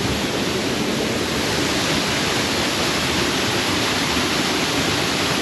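Steady rushing of a rain-swollen river and waterfall, a constant even roar of water with no breaks.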